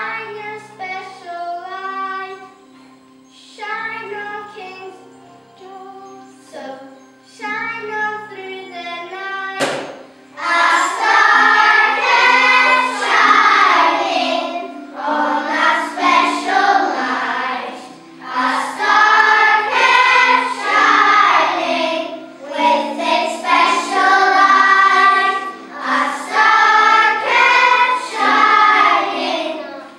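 A group of young children singing a song together over a musical accompaniment. The first ten seconds are quieter, then about ten seconds in the singing becomes much louder and fuller.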